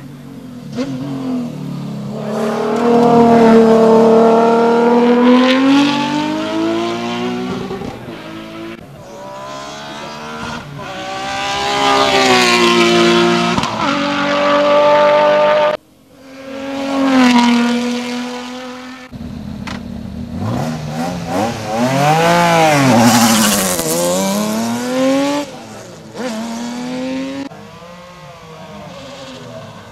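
Group CN sports-prototype race car engines at full throttle, revving high and changing up through the gears, the pitch rising and falling as the cars sweep past. There are several separate runs with abrupt cuts between them, and a quieter engine note near the end.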